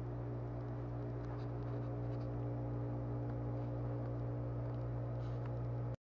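Steady low hum of room tone with a few faint clicks. It cuts off suddenly near the end.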